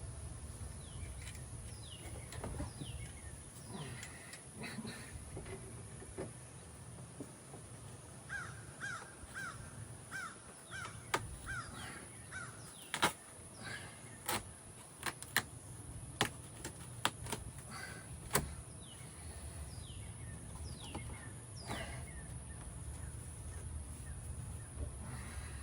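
Dashboard and interior teardown of an old BMW E30: a quick run of short squeaks partway through, followed by a scatter of sharp clicks and snaps from trim and tools being worked, over a low steady hum.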